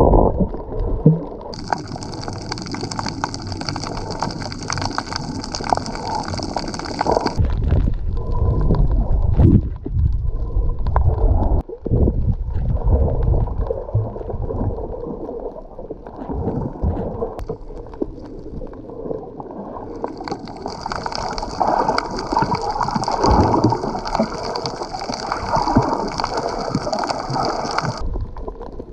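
Water gurgling and sloshing around an action camera while snorkeling. A steady hiss comes in sharply about a second and a half in, stops about seven seconds in, and returns from about twenty seconds in until near the end.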